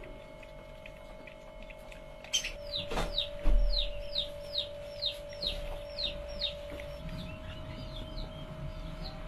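Baby hedgehogs (hoglets) peeping: a run of about a dozen high, thin chirps, each sliding downward, about three a second. They begin a couple of seconds in and grow fainter after about seven seconds. A muffled bump comes among the first calls, and a steady hum runs underneath.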